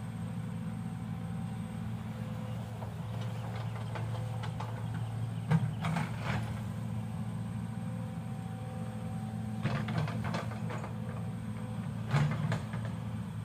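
Excavator diesel engine running steadily, with three short clusters of knocks from the machine working, the loudest about five and a half and twelve seconds in.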